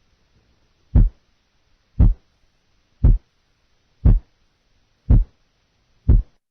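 Recorded heart sounds: six low thuds about one second apart, the first heart sound (S1) split by 0.02 seconds.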